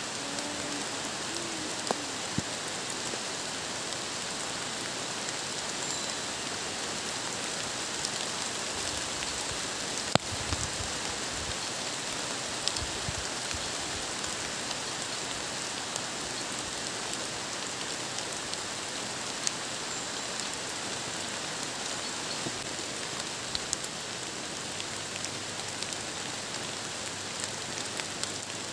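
Steady rain falling, an even hiss with scattered sharper ticks of drops striking.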